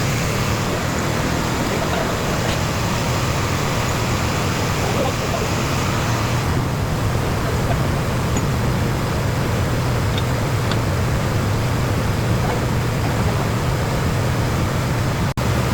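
Steady background rumble with a continuous low hum, the kind of noise road traffic makes; it holds level throughout, with a brief dip near the end.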